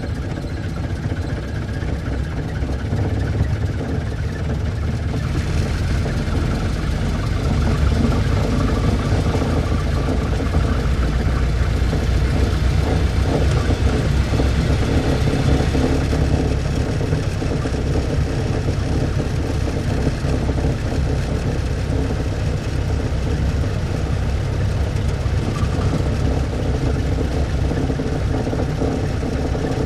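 Old car's engine running steadily, its rumble swelling over the first several seconds and then holding level.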